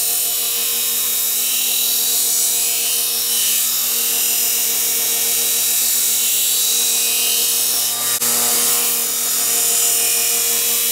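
Belt grinder grinding the bevels into a steel knife blank cut from a saw blade: a steady motor hum under the hiss of the abrasive belt on steel. There is a brief dip about eight seconds in.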